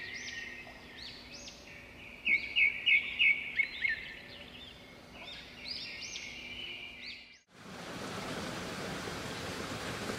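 Small birds chirping and twittering, with a run of about six quick, louder chirps about two seconds in. The birdsong cuts off suddenly about seven seconds in, and a steady, even hiss follows.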